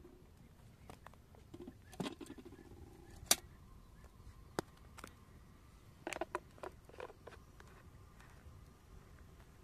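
Handling of kitchenware, a metal kettle and a plastic jug with its lid: a few scattered light clicks and knocks. There is a duller knock about two seconds in and the sharpest click a little after three seconds, then a quick cluster of small clicks about six seconds in.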